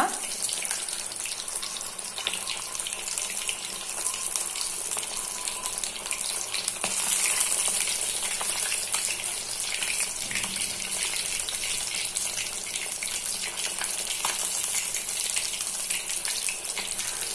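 Katla fish steak coated in masala shallow-frying in hot oil in a kadai on a low flame: a steady sizzle with fine crackling throughout.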